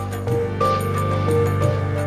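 Background music: an instrumental piece with held low notes and a slow melody moving above them.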